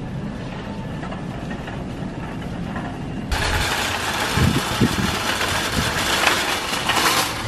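Wire shopping cart rolling, first as a quieter low rumble over a store floor. About three seconds in it turns to a louder, steady rattle of the empty cart's wheels and basket over concrete pavement, with a few knocks.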